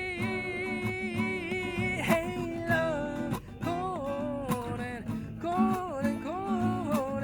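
Acoustic guitar strumming under a wordless sung melody: a long, wavering held note, then sliding vocal phrases from about two seconds in.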